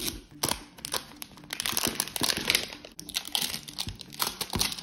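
Plastic wrapper crinkling and tearing in irregular crackles as a 5 Surprise Mini Brands capsule ball is peeled open by hand.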